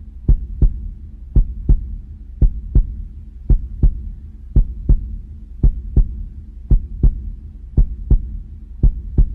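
Heartbeat sound effect: pairs of deep thumps, about one pair a second, over a steady low hum.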